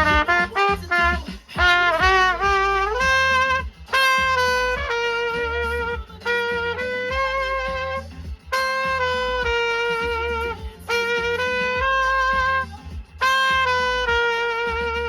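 Recorded music: a horn melody in long held notes, phrase after phrase, over a strong bass line.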